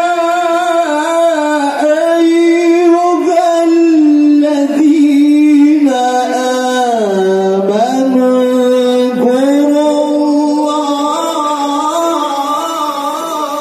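A male Quran reciter's voice, amplified through a microphone, sustains a long melodic tilawah passage. It winds through ornamented turns, dips to a lower pitch about seven seconds in, then climbs back up.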